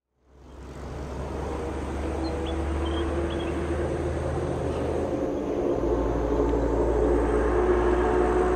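Jet airliner on final approach, its engine drone growing gradually louder as it comes nearer, over a low rumble.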